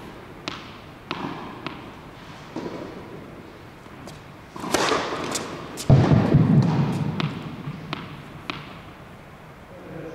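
Tennis ball bouncing on an indoor hard court, several sharp knocks about half a second apart, then a scuffle and a heavy dull thump about six seconds in, followed by a few more single knocks.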